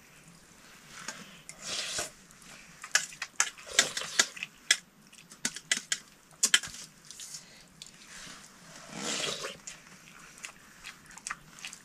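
Someone eating noodle soup from a bowl: a quick run of sharp clicks of a utensil against the dish in the middle, with a longer slurp about two seconds in and another near the end.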